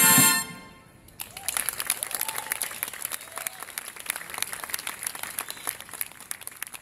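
A herald trumpet ensemble's final held chord cuts off within the first half second. About a second later an audience starts applauding and keeps clapping, with a few shouts.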